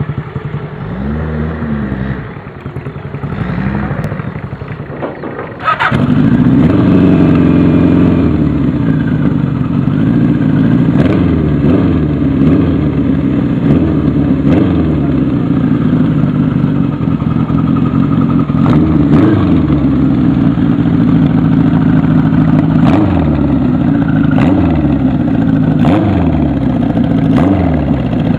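Kawasaki Z1 900's air-cooled inline-four engine running, blipped up and down again and again with the throttle. It gets suddenly much louder about six seconds in.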